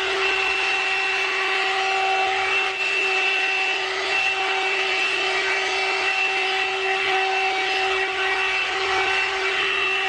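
Hot air brush (one-step hair dryer and styler) running on its middle setting: a steady motor whine over the rush of blown air.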